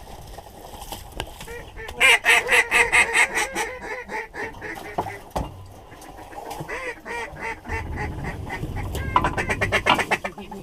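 Duck quacking in quick runs of loud calls: a fast run about two seconds in, scattered quieter quacks after it, and another fast run near the end.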